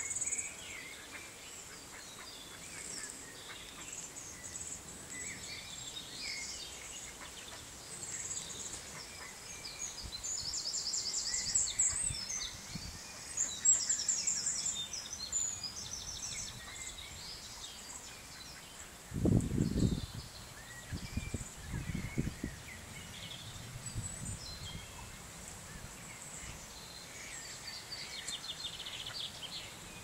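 Small songbirds singing and chirping, with runs of rapid trills about ten to fifteen seconds in, over a steady outdoor hiss. A brief low rumble comes just before twenty seconds in, with a few weaker ones after it.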